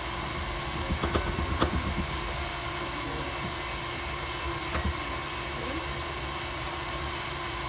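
Stand mixer motor running steadily with a constant hum as it mixes cake batter, with a few light knocks about one to two seconds in and again near five seconds.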